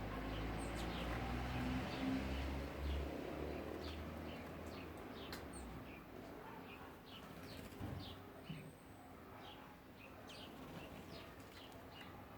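Birds chirping: many short, high calls come in quick scattered succession, over a low rumble that fades after the first few seconds.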